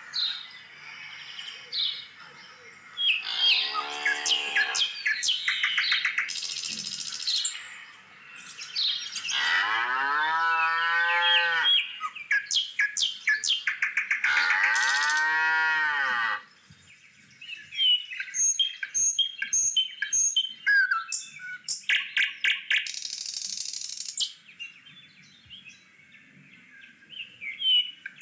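Cattle mooing three times, long calls that rise and then fall in pitch, the first shorter than the other two. Birds chirp and twitter throughout, with a fast run of repeated chirps after the last moo.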